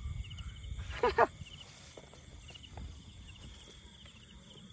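Field crickets chirping: a steady, rapid series of short high chirps repeating evenly, over a low rumble.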